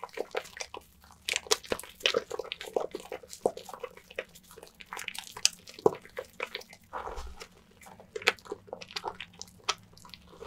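Wet bar of Nefis lavender soap being lathered close up: a run of irregular short squishing, crackling strokes.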